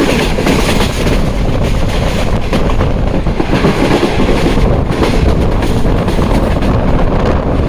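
Tezgam Express passenger train running at speed, heard from aboard: a continuous loud rumble and rattle of the coach, with wheels clicking over the rail joints.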